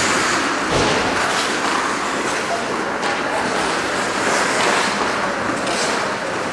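Ice hockey rink ambience: a steady wash of skates scraping the ice and voices in the stands, with a low knock about a second in.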